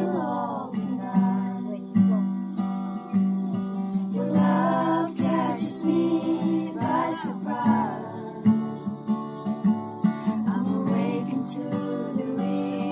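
Background song: strummed acoustic guitar, with a voice singing in places.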